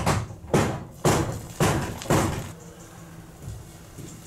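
Five loud bangs, about two a second, that stop about two and a half seconds in.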